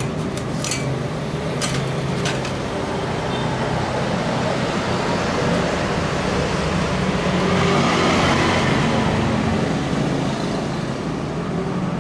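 Steady road-traffic noise with a low hum, swelling as a vehicle passes about eight seconds in. A few sharp clicks come in the first two and a half seconds.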